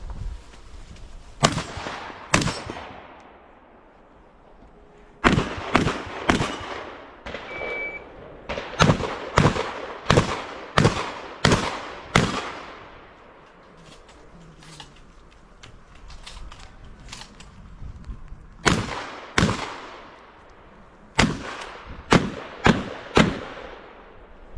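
Shotgun firing in rapid strings during an IPSC shotgun stage: two shots, then a burst of about ten shots in quick succession, a pause with a few fainter pops, then two more shots and a final string of four. Each shot rings out briefly.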